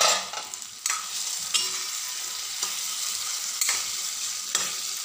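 Spiced red pumpkin cubes sizzling in a metal kadhai while a metal spoon stirs them. The spoon scrapes and knocks against the pan about once a second over a steady frying hiss.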